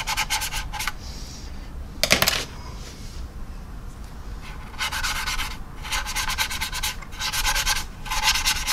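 A brush scrubbed rapidly back and forth over a plastic scale model's surface, blending in oil paint along the panel lines, in several short bursts of quick strokes. There is a single knock about two seconds in.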